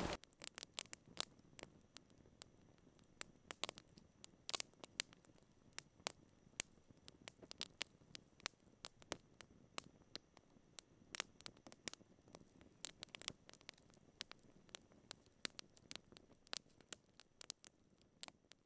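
Faint, sparse crackling: short sharp clicks at irregular intervals, a few a second, over near silence.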